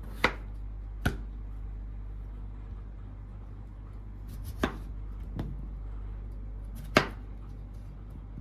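A kitchen knife chopping through raw peeled potatoes and striking a wooden cutting board: five sharp knocks at uneven intervals, two in the first second and three more later, over a steady low hum.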